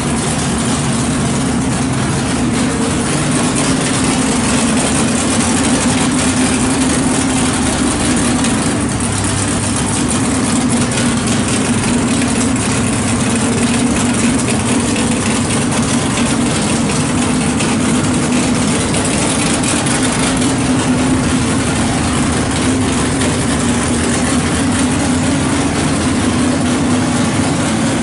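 427 big-block Chevy V8 of a 1970 Nova drag car running loudly at a steady idle, with no revving.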